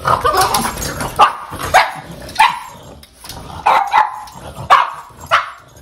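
Boston terrier giving about eight short, sharp barks, unevenly spaced: excited barking at a visitor arriving at the door.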